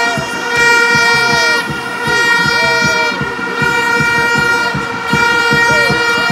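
A horn held on one steady, unbroken note over a stadium crowd, with shorter tones gliding up and down above it.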